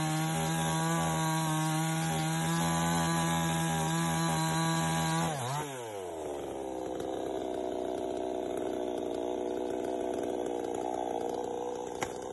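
A small chainsaw saws through a thin tree trunk, running at a steady high pitch. About five seconds in, its pitch drops sharply, and it runs on at a lower pitch. A brief sharp click comes near the end.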